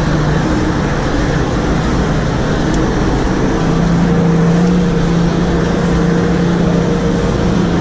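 Nissan GQ Patrol's TD42 4.2-litre straight-six diesel heard from inside the cab, driving under load up a rutted dirt track. It is a steady engine drone over tyre and body noise, growing stronger about halfway through.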